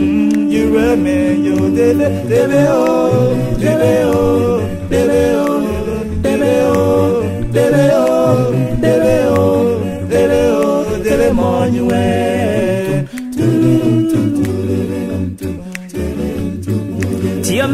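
A cappella vocal music: several voices singing together in harmony without instruments, in continuous phrases.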